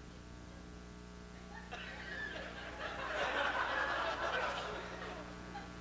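Audience laughing: the laughter starts about two seconds in, swells, then dies away near the end, over a faint low steady hum.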